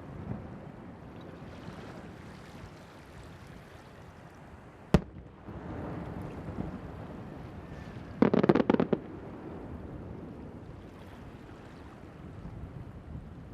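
Fireworks bursting over the sea. There is one sharp bang about five seconds in, followed by a rumbling echo. A rapid cluster of crackling bangs comes around eight seconds in and is the loudest part. A steady rushing noise of wind and surf runs underneath.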